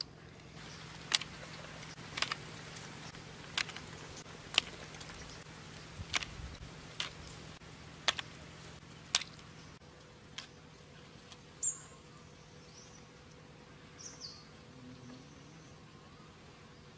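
Boiled prawn shells cracking in sharp single clicks about once a second as the prawns are peeled and eaten. A bird chirps briefly a couple of times in the second half.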